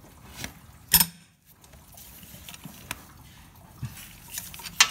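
Metal clinks of a socket and long extension bar being fitted onto a nut and knocking against the metal around it. A sharp clank comes about a second in and another near the end, with lighter clicks between.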